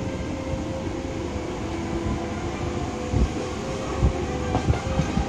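Passenger train running, heard from inside the carriage: a steady rumble of wheels on rails with a faint held whine, and two low knocks from the wheels about three and four seconds in.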